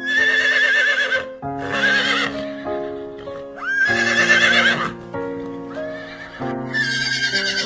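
A horse neighing four times, each whinny about a second long with a quavering, wavering pitch, over steady background piano music.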